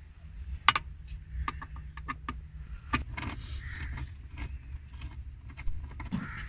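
Scattered light clicks and knocks of metal and plastic car interior parts being handled, the sharpest just under a second in, with a brief rustle about three and a half seconds in, over a low steady hum.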